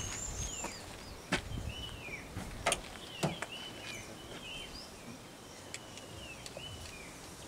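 Small birds calling with short, repeated falling chirps over faint outdoor background noise, with three sharp clicks in the first three and a half seconds.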